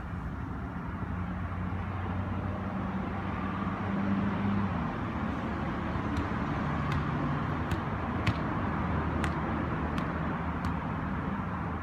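Steady low rumble of road traffic, and from about halfway a soccer ball being juggled: light taps of foot and head on the ball, roughly one every 0.7 seconds.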